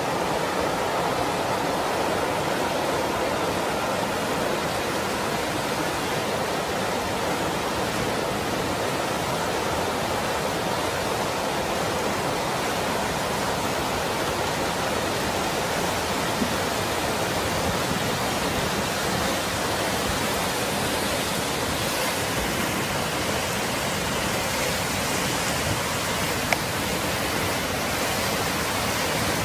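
Floodwater rushing steadily, an even, unbroken noise of churning water.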